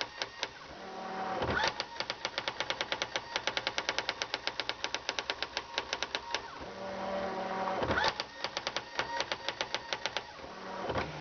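Brother GX-6500 electronic daisy-wheel typewriter printing in quick, even strokes of about ten a second. Three times, after a line, the carrier whirs back and stops with a thump as it returns.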